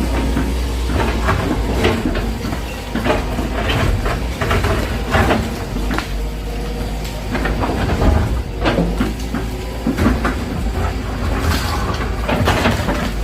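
Excavator's diesel engine running steadily while debris from a house being demolished cracks, knocks and clatters irregularly throughout.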